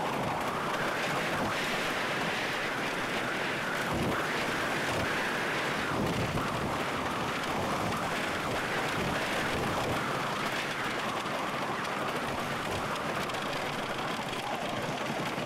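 Custom Coasters International wooden roller coaster train running at speed: a steady rush of wind on the microphone over the rumble of the wheels on the wooden track, with a couple of heavier jolts about four and six seconds in.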